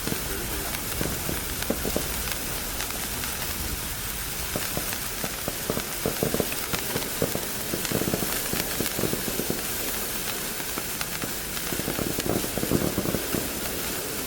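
Handheld waterfall firework burning: a steady hiss of spraying sparks with many small crackles throughout.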